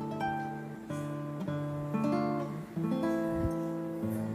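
Background music: acoustic guitar picking notes and chords, a new note or chord about every half second.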